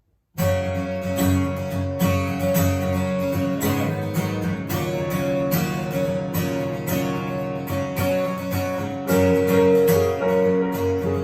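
Acoustic guitar strumming a steady rhythm, starting abruptly about half a second in: the instrumental introduction of a worship song.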